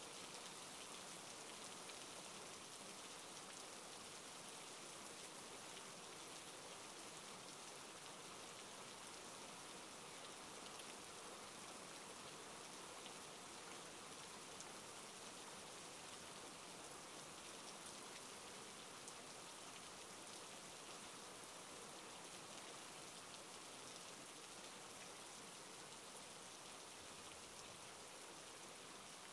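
Steady rain falling, a faint, even hiss that does not change.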